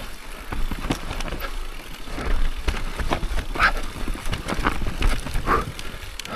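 Mountain bike riding fast down a dirt trail: tyres rolling over dirt and roots with a steady low rumble, and the bike clattering and rattling in many short knocks over the bumps.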